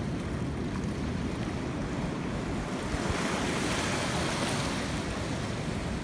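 Ocean swells washing and foaming around wooden pier pilings, with wind rumbling on the microphone. A louder surge of hissing wash swells up about halfway through and dies down again.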